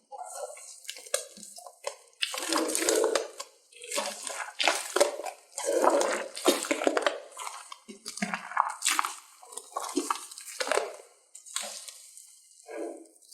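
Slime being squeezed and worked by hand: wet, sticky squishing in irregular bursts, with many small clicks and crackles.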